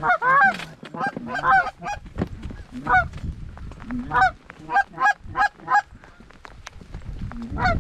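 Goose honks and clucks: a string of short, sharp calls, with a quick run of five about halfway through and another near the end, over a low rumble of wind and rain.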